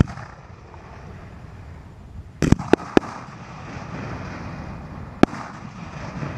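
Aerial firework shells: a sharp bang at the start as they are launched, then three or four sharp bangs in quick succession about two and a half seconds in as the shells burst, and one more bang about five seconds in.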